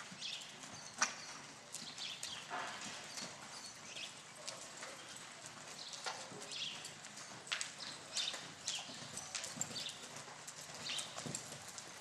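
Hoofbeats of a ridden horse trotting and turning on arena dirt: an irregular run of soft thuds and clicks, with one sharper knock about a second in.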